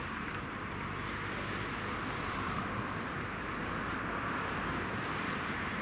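Fire engines' diesel engines running as the trucks manoeuvre, a steady engine noise with no siren.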